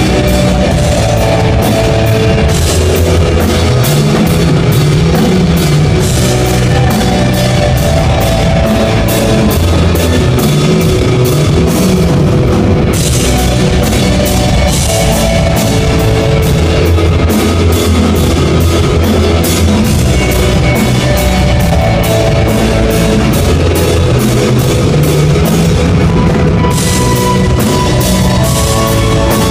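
Live rock band playing: electric guitar over a drum kit, with cymbals struck many times a second.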